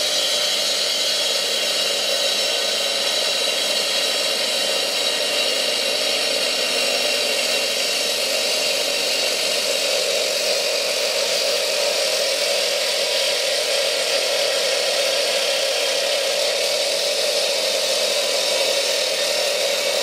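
Husqvarna electric cut-off saw with a diamond blade running steadily while cutting into a concrete slab, a constant high whine over a grinding noise.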